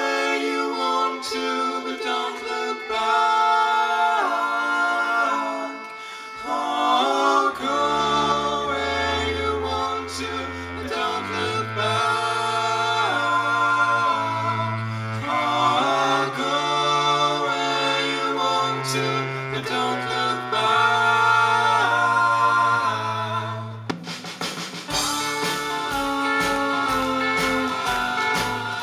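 A live band playing a song with several voices singing in harmony. A bass line joins about seven seconds in, and near the end a steady beat of percussion and strummed guitar starts.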